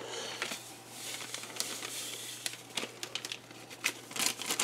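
Small plastic sugar packet crinkling and crackling as it is handled and emptied over a bowl of shredded cabbage, with a cluster of sharper crackles near the end.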